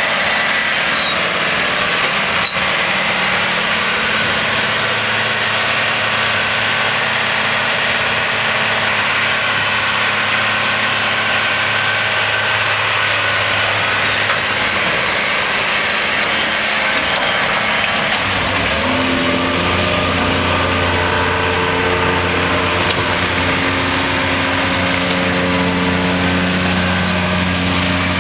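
Case tractor engine running steadily under load while driving a Taarup trailed forage harvester, with the harvester's chopping and blowing making a dense steady rush over the engine note. The engine note shifts to a different pitch about two-thirds of the way through.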